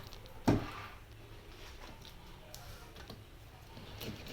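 Faint scattered clicks and scrapes of an uncapping knife slicing wax cappings off a honeycomb frame, with one brief louder sound about half a second in.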